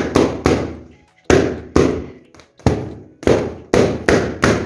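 A quick, uneven string of about ten sharp bangs, each with a short fading tail, sounding like firecrackers going off.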